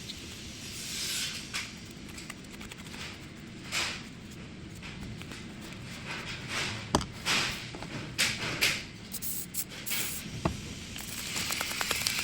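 Irregular clicks, knocks and short scraping sounds of small parts of a Makita cordless power tool being handled and worked on. The sharpest click comes about seven seconds in.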